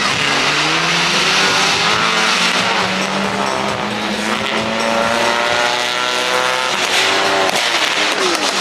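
Car engines running as cars drive laps of a race circuit: a steady drone, with engine notes rising and falling as the cars accelerate and lift off, over a wide hiss of tyre and road noise.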